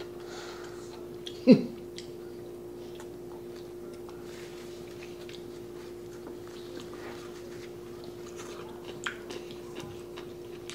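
Close-up chewing of black bean noodles, with small wet mouth clicks and smacks, over a steady low hum. About a second and a half in there is one short, loud vocal sound that falls in pitch.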